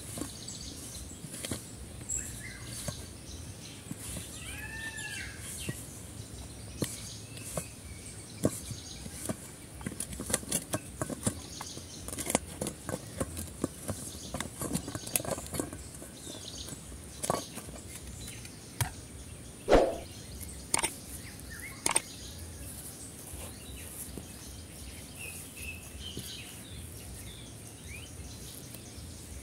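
Hands working crumbly flour-and-oil dough in a stainless steel bowl, giving scattered clicks and knocks, densest in the middle and loudest about two-thirds through. A bird chirps a few times and insects sound steadily in the background.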